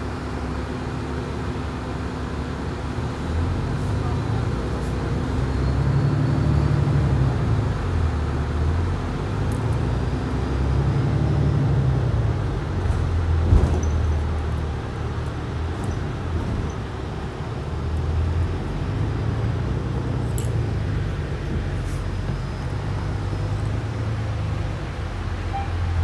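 City bus heard from inside the cabin: a low, uneven droning from the bus that swells and fades every few seconds, the weird noise this bus is filmed for, over steady road noise. A single knock about halfway through.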